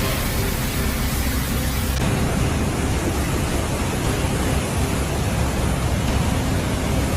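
Steady rushing of water, a dense roar of noise that shifts about two seconds in to a deeper, heavier rumble.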